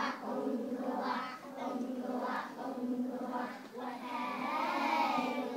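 A group of young children singing a song together, phrase by phrase, with a longer held note near the end.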